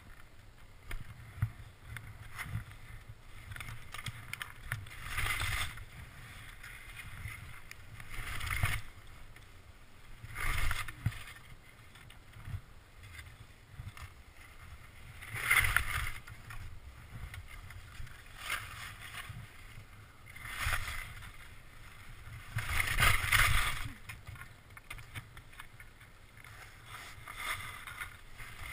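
Skis scraping and swishing over snow in a series of turns: about six irregular louder bursts of hiss over a steady low rumble.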